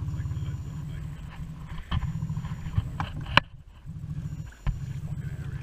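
Steady low rumble from wind on the microphone and the small outboard motor of an inflatable boat under way. A sharp click comes a little past halfway, then the rumble drops away for about a second before coming back.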